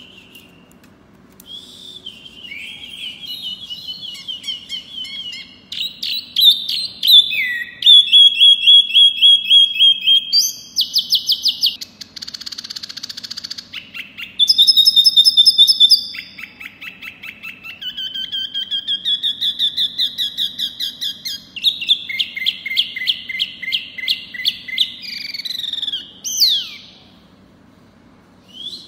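A caged wambi mini songbird singing a long, varied, high-pitched song: rapid runs of repeated chirps, trills and short whistled glides, with a harsh hissing phrase in the middle. The song pauses briefly about a second in and again near the end.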